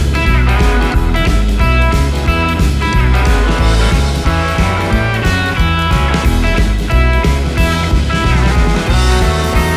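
Background music: a guitar-led rock track with a steady bass beat.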